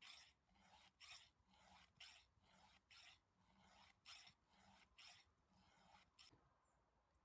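Faint, even rasping strokes of a file, about two a second, as a chainsaw chain is sharpened by hand; the strokes stop a little after six seconds in.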